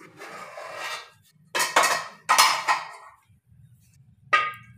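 Metal cookware being handled: an aluminium pot's lid and a steel ladle clattering as they are taken off the pot. There are several metal clanks with a short ring, and a sharp ringing clink near the end.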